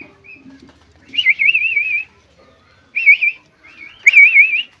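Loud, high warbling whistles, three of them: each holds one note that wavers quickly up and down. The first is about a second in and lasts about a second, a short one follows near the middle, and another comes near the end.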